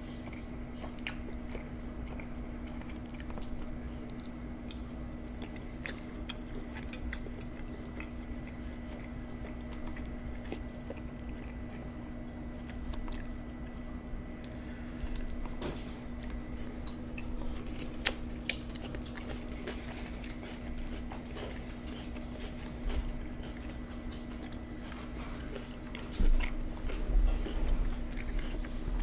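Close-miked chewing and biting of deep dish supreme pizza with saucy peppers and onions: wet mouth sounds and small clicks over a steady low hum, with a few louder low bumps near the end.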